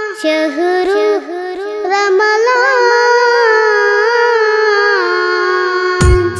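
A boy singing a Malayalam madh (Islamic devotional song) unaccompanied, in ornamented phrases that bend and slide in pitch, settling into a long held note. Drums and percussion come in near the end.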